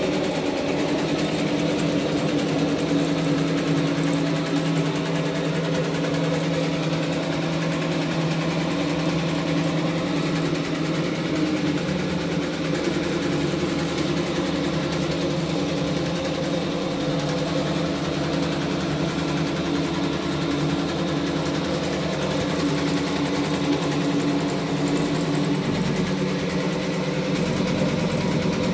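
Two-head, 12-needle computerized embroidery machine running, both heads stitching lettering onto shirts: a steady, rapid stitching rhythm over a steady motor hum.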